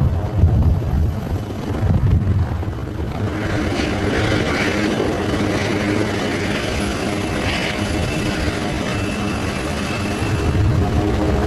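HAL Dhruv twin-turboshaft helicopters running on the ground and in a low hover, a steady rotor and engine noise with a higher whine coming up for a few seconds in the middle.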